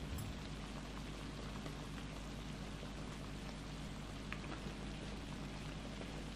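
Spicy-sauced webfoot octopus, shrimp and pork jowl sizzling steadily in a hot griddle pan, with a few small pops.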